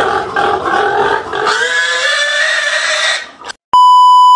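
Domestic pig squealing as several men grab and hold it for slaughter: quick repeated squeals, then one long drawn-out scream from about a second and a half in that breaks off near three seconds. Near the end comes a loud, steady test-tone beep.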